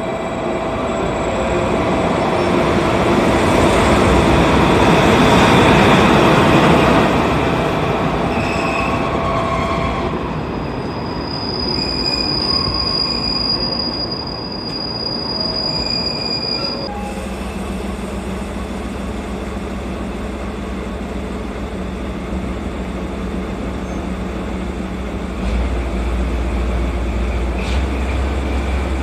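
A train of passenger coaches rolling in alongside a platform and braking, with a high, steady wheel and brake squeal for several seconds before it comes to a stop. From just past the midpoint, a DE10 diesel locomotive idles with a steady low hum that grows louder a few seconds before the end.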